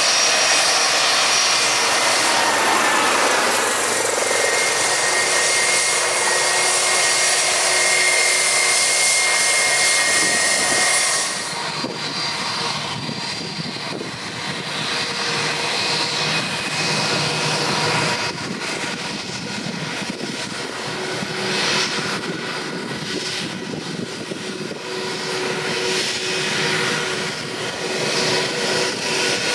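Airbus A320 twin jet engines whining steadily at low taxi power as the airliner rolls along the runway. About 11 seconds in the sound drops suddenly to a quieter, more distant engine hum that carries on as the jet turns.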